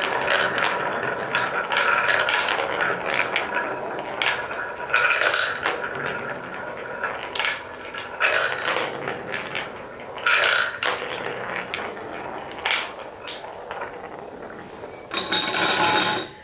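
Wooden balls rolling and clacking on a wooden marble run: a rapid clatter of knocks at first, thinning to scattered clacks, over the steady rolling of balls circling the wooden funnel bowl. A denser, louder rattle comes near the end.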